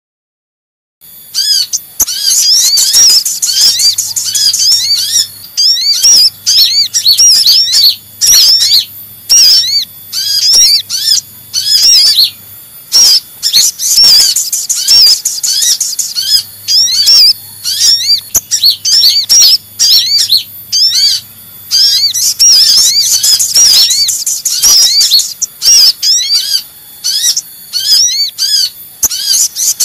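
Sunbird lure recording: kolibri ninja (konin) and sogon sunbirds calling in an excited, rapid stream of high, quick arched chirps, with only brief breaks. It starts about a second in.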